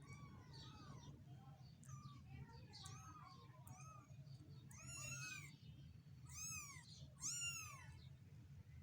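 Week-old kittens mewing: a run of small, thin mews, then three louder ones about five, six and a half and seven and a half seconds in, each rising then falling in pitch. A steady low hum runs underneath.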